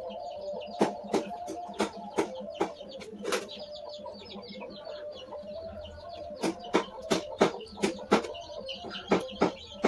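Irregular sharp clicks and taps of hands and a thin stick working duck intestines in a metal basin, coming thicker in the second half, over a steady background of bird calls.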